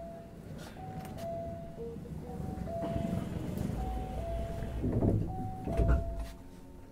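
Two-tone electronic chime inside a stopped Hankyu 1000 series train, a short higher note then a longer lower one, repeating about every second and a half. About five and six seconds in come two heavy thumps as the doors close, and the chime stops with them.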